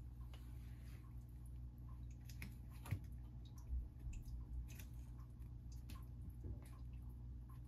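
Faint scattered ticks and soft taps of a kitten's paws and claws scrabbling on the floor and against a socked foot as it play-attacks, over a low steady hum. One sharper knock comes about three seconds in.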